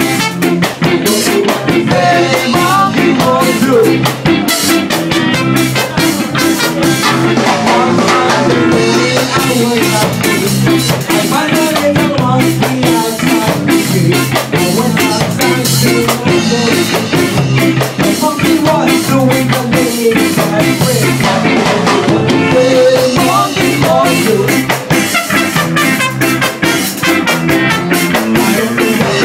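A ska band playing loud live music: electric guitar and drum kit keeping a steady ska beat, with a singer at the microphone.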